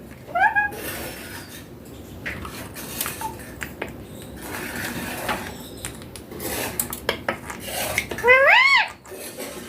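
Young Indian ringneck parakeet giving a short call just after the start and a louder, longer call near the end. Clicks, clinks and scraping come in between.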